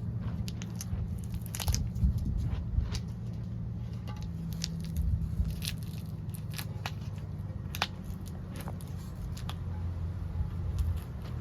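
Scattered light clicks and ticks of tools and parts being handled, irregularly spaced, over a steady low hum.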